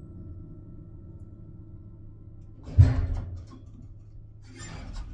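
Elevator running with a low hum, then a single heavy metallic clunk with a short ringing tail about three seconds in. Rustling and sharp clicks follow near the end.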